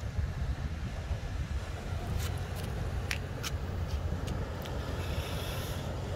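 Wind buffeting the microphone: a steady, gusting low rumble, with a few sharp clicks about two to five seconds in.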